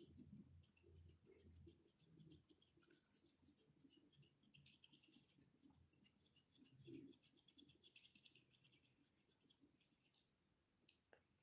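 Faint, quick snipping of grooming scissors cutting a toy poodle's head and face fur, several snips a second with a short pause about halfway, stopping shortly before the end.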